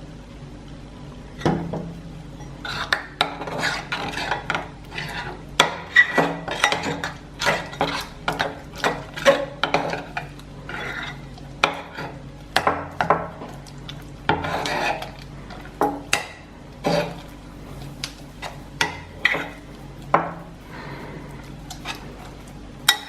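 A utensil stirring a glue, BB cream and liquid detergent slime mix in a bowl, with irregular scrapes and taps against the bowl starting about a second and a half in, as the detergent sets the glue into slime.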